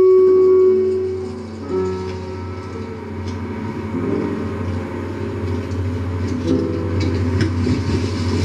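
Live experimental electronic music: a loud held drone tone fades out about a second in, giving way to a dense cluster of shifting, overlapping tones over a steady low hum, with scattered clicks.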